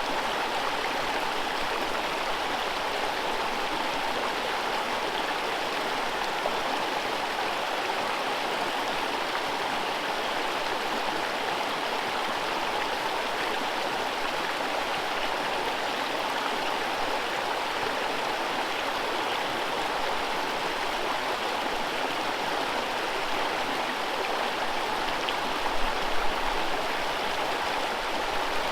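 Whitewater rapids of a forest river rushing in a steady, unbroken wash of water noise. A brief low bump sounds near the end.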